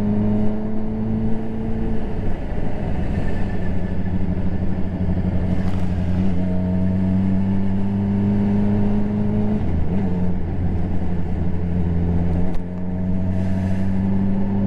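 Honda CBR600RR inline-four engine running at town speed, its note climbing slowly and dropping back a few times, about 2 s, 10 s and 12.5 s in. Wind and road noise run under it.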